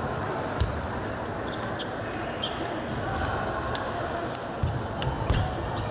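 Table tennis balls clicking sharply and irregularly off paddles and tables during a rally, over a steady murmur from the hall, with a few dull thumps.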